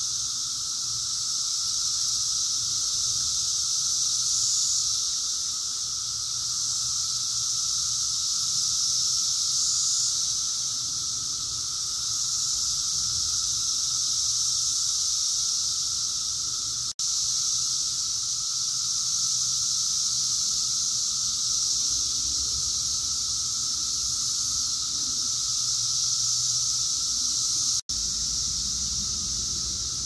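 Dense chorus of Brood X periodical cicadas (17-year cicadas): a loud, steady high-pitched drone with a lower steady tone beneath it, swelling and easing every few seconds.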